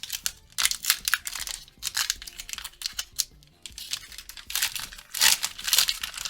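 Foil wrapper of a Pokémon booster pack being torn open and crinkled, in irregular bursts of rustling that are loudest about a second in and again near the end.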